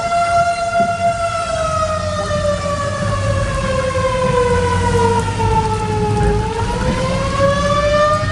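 Outdoor tornado warning siren wailing: its tone holds for about a second, slides slowly down over several seconds, then climbs back up near the end. It is sounding for a tornado warning.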